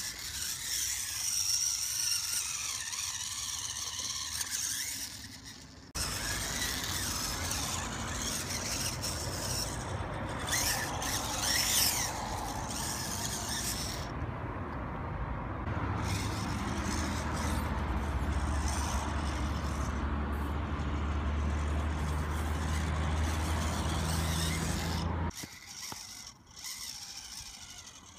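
1/18-scale RC rock crawler climbing rock, its small 380-size electric motor and gear drivetrain whining in spurts, with a rising whine around ten to twelve seconds in and tyres scraping on stone. A steady low hum runs through the later part, and the sound changes abruptly about six seconds in and again near the end.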